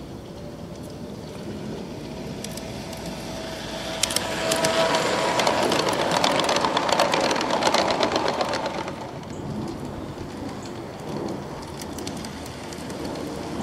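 G-scale model Taurus electric locomotive and passenger cars running on garden railway track: a motor whine with a rapid clicking of wheels on the rails. It grows loud as the train passes close, from about four to nine seconds in, then drops back.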